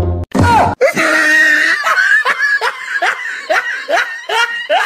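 A person laughing hard in a quick run of high-pitched laughs, about three a second in the second half.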